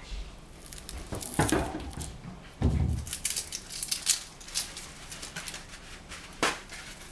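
Dry papery skin being peeled and pulled off a red shallot: short crackling and rustling strokes, with a dull knock about two and a half seconds in and a few lighter clicks after.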